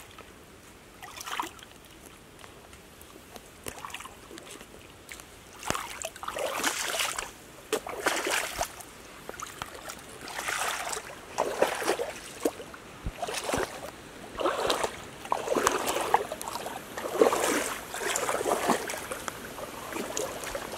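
Water splashing and sloshing in a shallow stream. It is faint at first, then comes in separate splashes about once a second from roughly a third of the way in.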